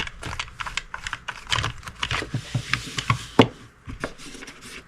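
Irregular small clicks and taps from hands working the air filter cover of an Echo CS271T chainsaw, opening it to reach the air filter.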